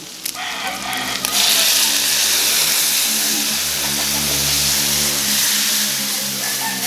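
Water poured into a hot wok of sautéed pork, hissing and sizzling steadily as it hits the hot metal, starting about a second in. A low steady hum runs underneath.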